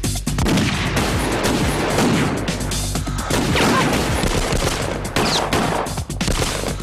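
Rapid gunfire from several guns in a shootout, the shots overlapping in dense volleys, over dramatic background music.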